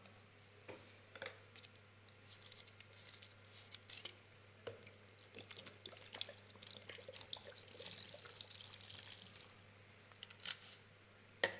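Water being poured from a plastic bottle into a plastic container, faint, with a few small clicks near the start as the bottle's cap is twisted off.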